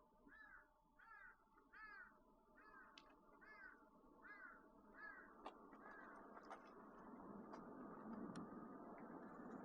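A crow cawing about eight times in a row, faint, over a steady low hum of road noise. In the second half, light ticks come about once a second.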